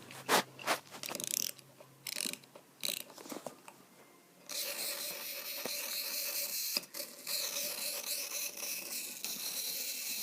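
Wind-up toy's clockwork: scattered clicks of the key being wound, then about four and a half seconds in the spring motor starts running with a steady whir, briefly faltering about seven seconds in. The toy's mechanism still runs after being frozen in ice.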